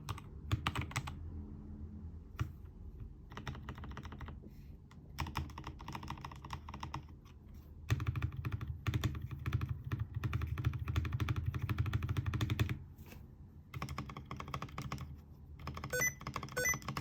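Typing on a Keychron K2 v2 mechanical keyboard with lubed Gazzew Boba U4T tactile switches and PBT XDA-profile keycaps: rapid runs of keystrokes in bursts with short pauses between.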